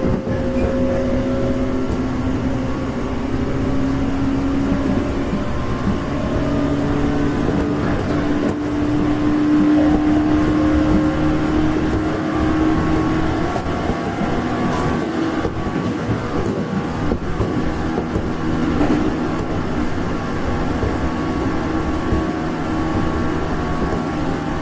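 Running sound heard from inside the cabin of a 415 series 1500-subseries electric multiple unit: a steady rumble of wheels on rail under the motor and gear whine. The whine rises slowly in pitch through the first half as the train picks up speed, with a few light clicks.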